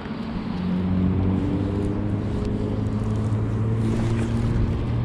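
A motor engine running steadily: a low drone of several held pitches that grows louder over the first second, then holds.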